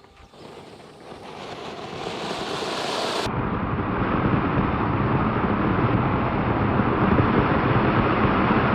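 Anar (flower-pot) firework fountain spraying sparks with a steady hiss. The hiss swells over the first three seconds, then stays loud.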